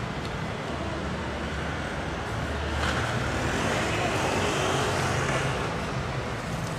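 Street traffic: a steady hum of city traffic, with a vehicle passing that grows louder from about three seconds in and fades again.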